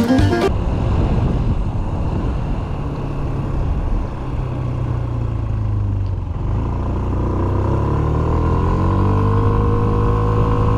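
Yamaha Smax 155 scooter's 155cc four-valve single-cylinder engine running at speed under a rush of wind noise. From about six seconds in the engine note rises as it accelerates, then levels off at a steady pitch.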